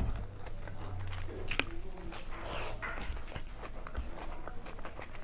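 Close-up eating sounds: a person chewing food, with many small clicks and short wet smears.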